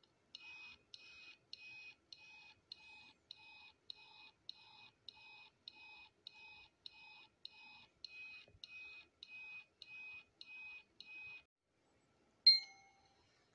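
Electronic beeping from a brass replica Omni time-machine prop: a steady run of pulsing high beeps, a bit under two a second, that stops after about eleven seconds, followed by a single sharp, louder ping near the end.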